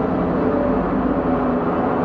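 Dark ambient dungeon synth music: a dense, steady synthesizer drone with sustained low tones held throughout.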